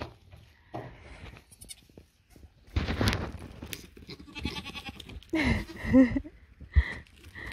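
Adult goat bleating, one wavering call a little over five seconds in, with scattered thumps and knocks around it.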